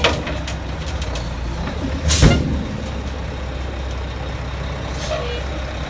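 Mack dump truck's diesel engine running steadily while the raised bed dumps its load of dirt. Short, loud, sharp bursts cut through it right at the start, about two seconds in, and again at the end.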